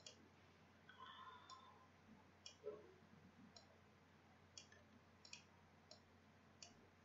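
Faint computer mouse button clicks, about eight at irregular intervals, over quiet room tone.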